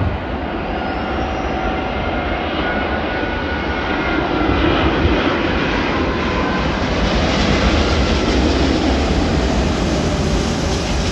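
Airbus A380-841 landing, its four Rolls-Royce Trent 970 jet engines giving a dense steady rush with faint whining tones that drift in pitch. The sound swells louder about halfway through and stays loud.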